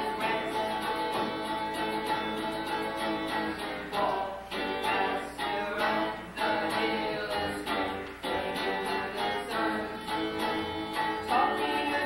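Live band music: singing over held instrumental tones.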